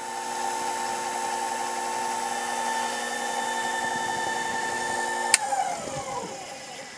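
Sherline mini lathe's motor and spindle running with a steady whine while the tool takes a light facing cut across the end of an aluminium workpiece wetted with cutting fluid. About five seconds in there is a sharp click, and then the whine falls in pitch and fades as the spindle winds down.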